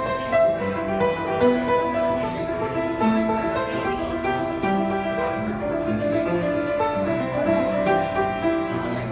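Solo piano playing a flowing passage of many notes struck in quick succession, the notes ringing into one another.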